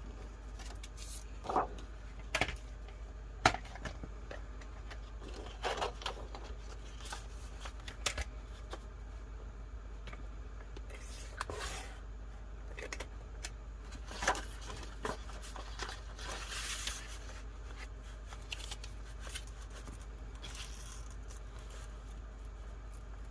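Paper being handled and cut: intermittent rustling of sheets with scattered sharp taps and clicks, the loudest in the first few seconds.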